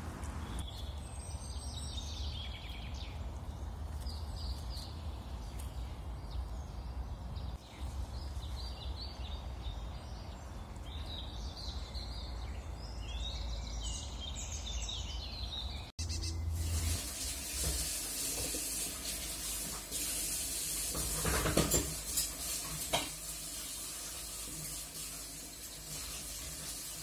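High chirps like small birds over a steady low rumble. About two-thirds of the way through, the sound cuts suddenly to a steady sizzling hiss with a few short clicks.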